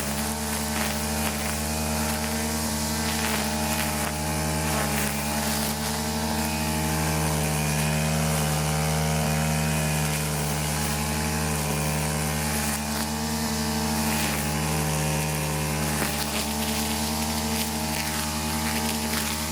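An engine running steadily at a near-even speed, its pitch wavering slightly.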